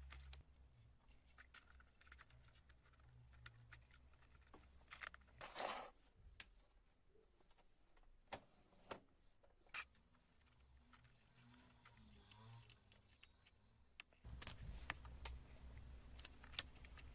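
Mostly near silence, with scattered light clicks and a short scrape about five and a half seconds in, as of small parts and tools being handled; a low hum comes in near the end.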